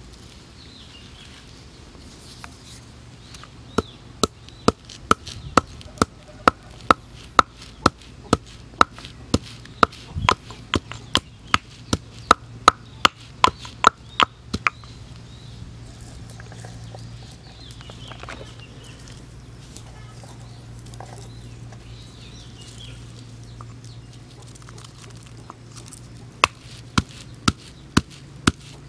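Stone pestle pounding garlic in a stone mortar: a run of sharp, evenly spaced knocks, a bit under two a second, starting about four seconds in. The knocks stop for about ten seconds and start again near the end.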